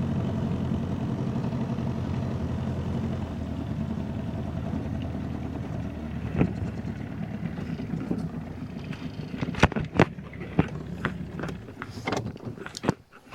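Boat motor running steadily, then slowly fading away. Several sharp clicks and knocks follow in the last few seconds.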